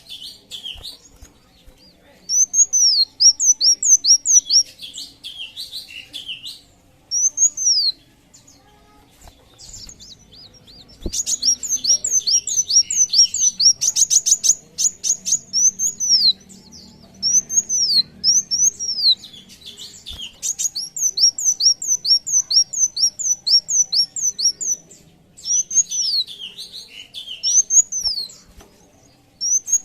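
A sunbird singing: fast runs of high, sweeping chirps, broken by short pauses, with a rapid trill about halfway through.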